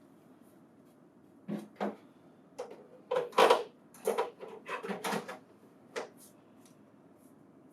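Bin 2, an output bin of a Lexmark booklet finisher, being fitted into place: a run of short clacks and knocks, about a dozen, starting about a second and a half in and ending around six seconds in.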